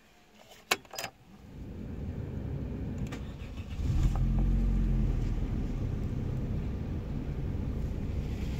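Two clicks about a second in, then an Opel 1.2 X12XE four-cylinder petrol engine is cranked and catches about four seconds in, briefly running faster before settling into a steady idle.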